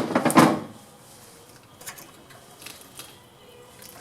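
A loud rattling clatter right at the start, then a few faint light clicks: small metal engine parts and hand tools being handled during carburetor removal.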